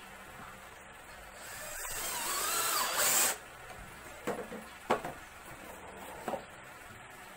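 Power drill boring into the plywood top of a small cabinet box for about two seconds, its motor pitch wavering and the drilling getting louder until it stops suddenly. Then three sharp knocks as the wooden box is handled.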